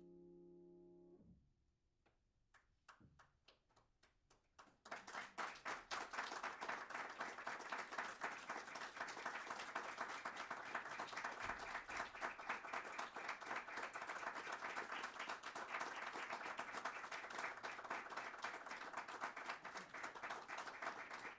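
A grand piano's final chord dies away, then a few scattered claps start and, about five seconds in, build into steady audience applause.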